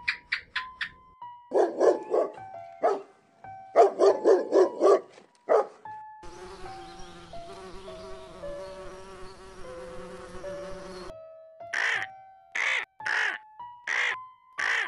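Honeybees buzzing steadily around a hive entrance for about five seconds in the middle, between short animal calls: a rhythmic run of loud calls in the first few seconds and five harsh calls about half a second apart near the end. Soft background music with slow single notes plays underneath.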